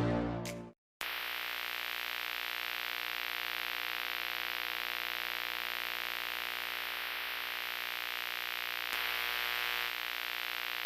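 Electronic dance music cuts off within the first second. After a short gap comes a steady static hiss with a faint buzz of steady tones beneath it, which turns grainier about nine seconds in.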